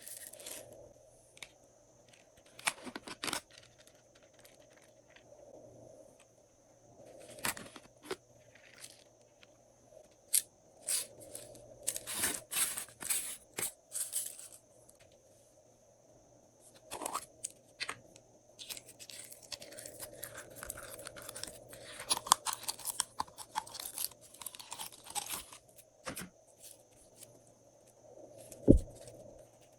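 Slime being squished, stretched and mixed by hand, giving irregular sticky crackling and tearing sounds in bunches with short quiet gaps between. A single sharp thump comes near the end.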